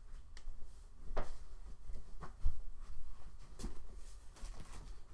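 A person's footsteps crossing a small room, a handful of irregular soft thuds and knocks.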